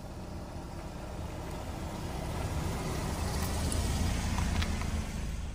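Car running, a low rumble that grows steadily louder, with a couple of faint clicks near the end.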